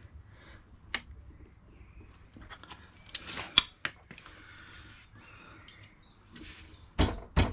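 Hand tools clicking and clinking on metal as the bolts of a motorcycle pannier rack are tightened, in scattered sharp taps with two heavier knocks near the end.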